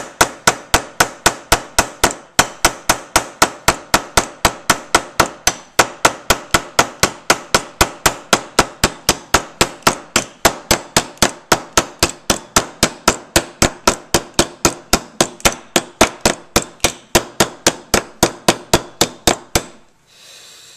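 MTE M3-2I flashlight's lens end hammering a 16d nail into wood: a steady run of blows, about four a second, each with a metallic ring. The blows stop near the end.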